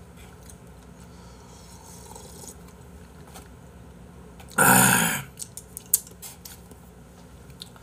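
Someone eating: faint chewing and small clicks of chopsticks, with one short, loud breathy vocal sound from the eater's mouth about halfway through.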